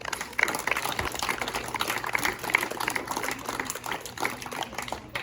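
Applause: many hands clapping at once in a dense, irregular stream of claps.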